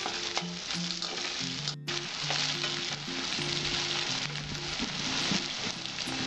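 Chopped onion sizzling steadily as it fries in hot mustard oil in an aluminium kadai, with a few light scrapes of a metal spatula against the pan near the start.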